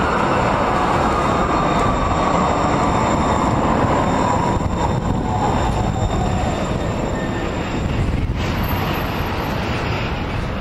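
TriMet MAX light rail trains passing on street track: the rumble of wheels on rail, with a motor whine that falls steadily in pitch over the first several seconds as a train moves off.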